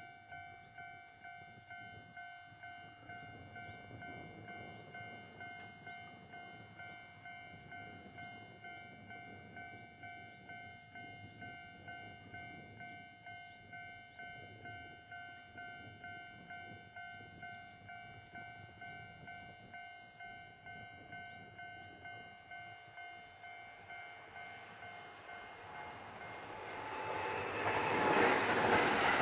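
Railway level-crossing bell ringing in an even, repeating rhythm. Near the end a Kintetsu Osaka Line train comes up, and its loud running noise grows over the bell.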